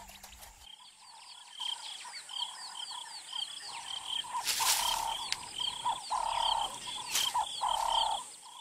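Frog and insect chorus at dusk: a fast, steady run of short high chirps over a lower pulsing croak that swells louder several times. A few sharp clicks come through.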